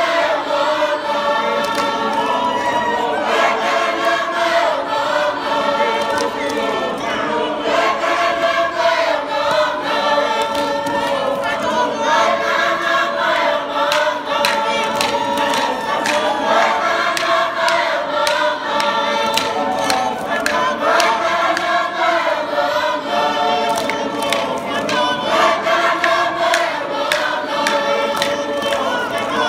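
Tongan lakalaka sung by a large mixed choir of the dancers themselves, men's and women's voices in several parts holding long chanted notes. From about a quarter of the way in, frequent sharp claps sound over the singing.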